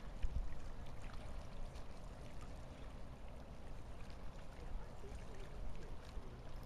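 Riverside ambience: a steady low rumble with a faint wash of moving water.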